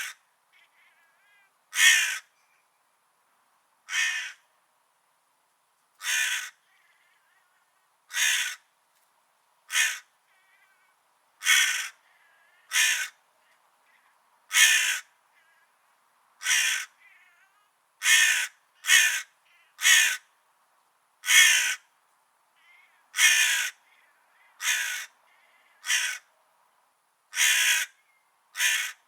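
A crow-family bird (corvid) giving loud, harsh caws, one short call at a time, about eighteen in all at irregular gaps of one to two seconds, with quick pairs now and then.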